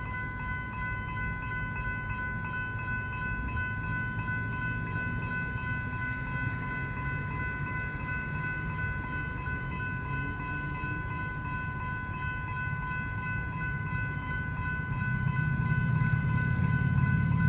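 General Signal Type 3 electronic level-crossing bells ringing continuously, a steady rapidly pulsing chime that warns the crossing is active. A low rumble grows louder near the end.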